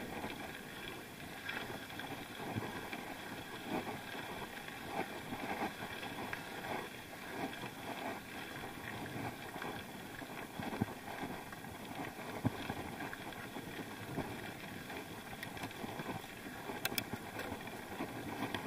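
Bicycle rolling downhill on a rough dirt track: steady rolling noise with many small irregular rattles and knocks from the bike.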